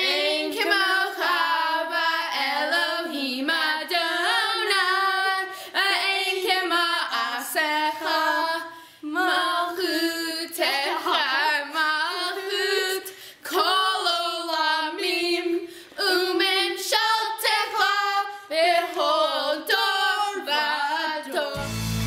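Young girls' voices singing a slow melody together, unaccompanied, in phrases with short pauses between them. Instrumental music cuts in near the end.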